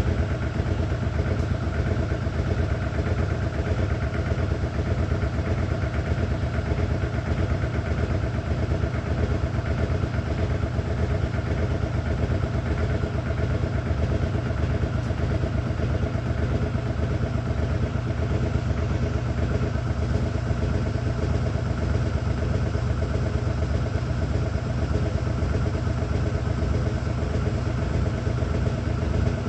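A washer running with a steady, loud low drone and a fast rattling flutter that doesn't let up, the noise its owner calls very weird.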